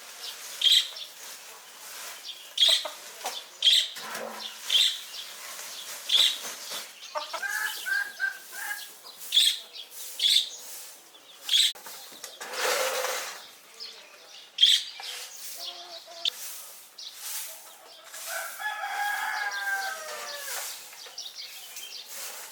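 Chickens in a coop: two drawn-out calls, the second longer, with clucking and wing flapping. Short, sharp strokes come roughly once a second through much of the stretch.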